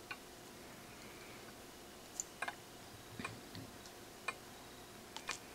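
Small metal torch tips and the micro torch being handled in the hand, giving a handful of faint, scattered clicks and light clinks.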